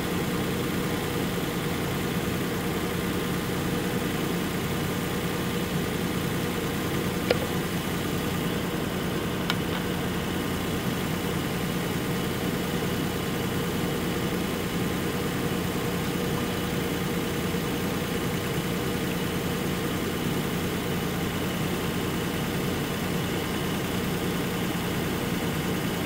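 Lexus RX400h's 3.3-litre V6 idling steadily at operating temperature while air is bled from its cooling system through a coolant funnel. A couple of light clicks about seven and nine seconds in.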